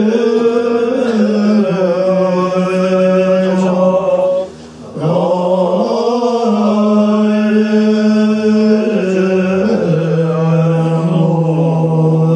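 Tibetan Buddhist monks chanting in unison through microphones: long held notes that step up and down in pitch, with a short pause for breath about four and a half seconds in.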